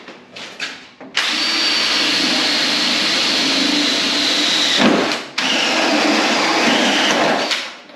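Cordless drill driving a hole saw through aluminum sheet: a steady, loud cutting whir with a faint high whine. It starts about a second in, stops briefly about five seconds in, then runs again for a couple of seconds.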